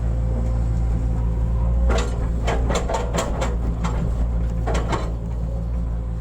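Hitachi hydraulic excavator's diesel engine running steadily at a low drone. From about two seconds in to about five seconds in, a quick run of sharp metallic clanks sounds over it, about eight in all.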